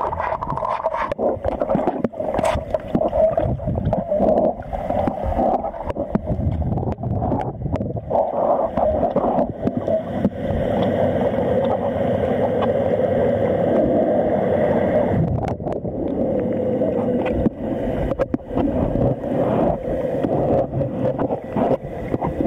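Muffled underwater sloshing and gurgling of a Greater Swiss Mountain Dog paddling in a pool, heard through a camera held under water, with irregular knocks.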